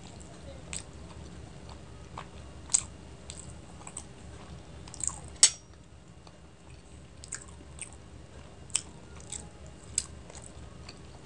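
Close-miked chewing of a steamed chicken momo dipped in red chutney: sharp wet mouth clicks and smacks about once a second, the two loudest about a quarter and halfway through.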